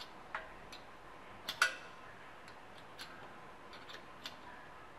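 Scattered sharp metal clicks and ticks of a wrench turning a thread tap as it cuts new threads in a BMW R27's crankcase, the loudest a close pair about a second and a half in.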